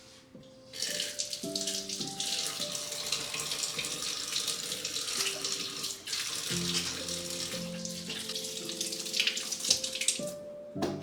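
Water running hard from a tap into a sink, turned on about a second in and off near the end, over soft background piano music.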